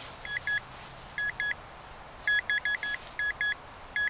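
Rutus Alter 71 metal detector giving short, high beeps of one pitch: a single one, then pairs, a quick run of four and another pair, its target signal as the coil sweeps.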